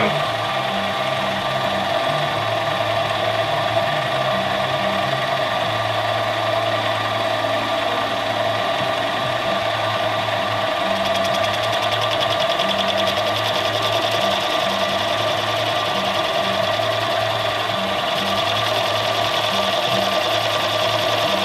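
Benchtop mini lathe running steadily, its motor and spindle giving a constant hum with a whine over it. About halfway in, a fine, rapid rasping joins as the cutting tool is fed into the metal ring that holds the lens's rear element.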